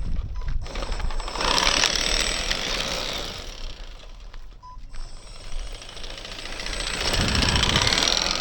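3D printed remote control truck driving over rough ground, its electric motor and plastic drivetrain rattling and whirring. It comes in two surges, one starting about a second and a half in and a second near the end.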